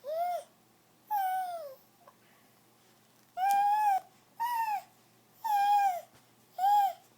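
A pet animal making a series of six short, high, bird-like calls. Each call is well under a second long, and several rise slightly and then fall away, with short pauses between them.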